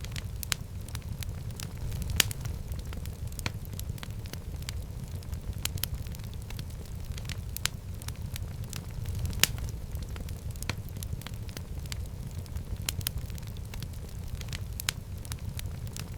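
Wood fire burning in a fireplace: a steady low rumble of flames with frequent irregular crackles and a few sharper pops.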